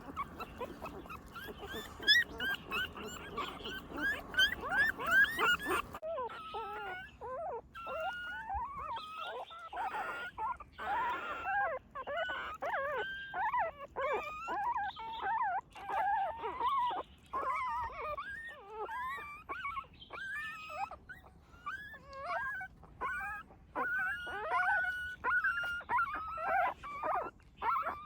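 Newborn puppies whimpering and squealing: a constant run of short, high cries that rise and fall, overlapping one after another. A steady hiss under the first few seconds stops suddenly about six seconds in.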